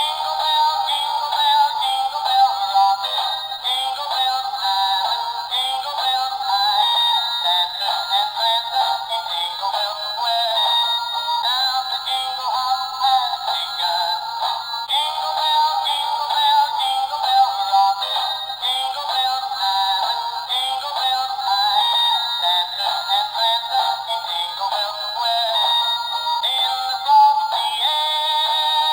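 A plastic musical toy plays a jingly electronic tune with a synthetic-sounding singing voice through its small speaker. The sound is thin and tinny, with no bass.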